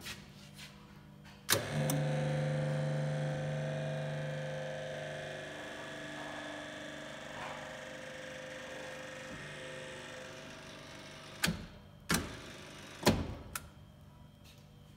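Electric drive of a Haagen & Rinau Unimix universal mixer starting with a click and running with a steady hum that slowly fades, followed by three sharp clicks near the end.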